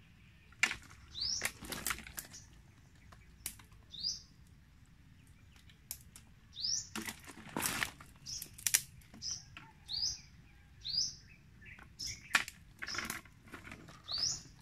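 A bird chirping over and over: short high cheeps, roughly one a second, with scattered sharp clicks in between, a cluster of the loudest clicks about halfway through.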